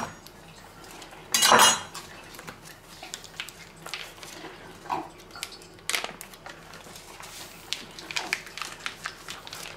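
Handling noises at a kitchen counter: a knife, a metal wire rack and a wooden cutting board clinking and knocking, mixed with the rustle of plastic vacuum packaging being cut open. There are scattered short clicks, with one louder burst of rustle and clatter about a second and a half in.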